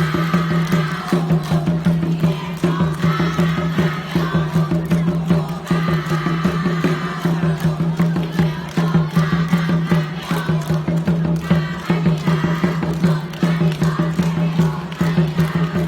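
Loud music with a steady, fast drumbeat over a held low tone.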